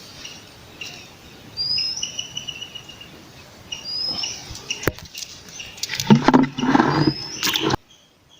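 A bird calling outdoors, repeating a short rising whistle with a lower note about every two to three seconds. A louder burst of rustling noise comes about six seconds in, and near the end the sound drops suddenly to a faint, evenly repeating insect chirping.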